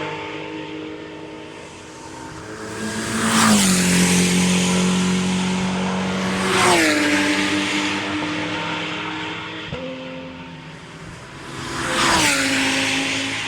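Race cars passing at speed one after another: three pass-bys, a quarter of the way in, midway and near the end, each engine note dropping in pitch as the car goes by, with other engines running steadily in between.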